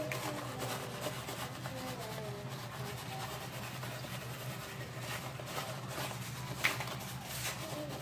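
A plastic bag crinkling and rustling as crushed Oreo cookie pieces are shaken out of it onto a dessert, with one sharper crackle about two-thirds of the way in. A steady low hum runs underneath.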